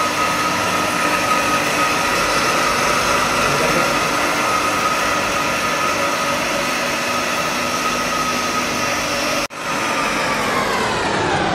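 Three-phase electric motor driving a centrifugal water pump through a flexible coupling, running steadily with an even hum and a high whine. Near the end the sound drops out for an instant, then the whole sound slides steadily lower in pitch.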